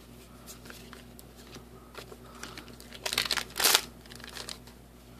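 Trading cards and foil booster-pack wrappers being handled: soft scattered clicks of cards, with a louder spell of crinkling about three seconds in.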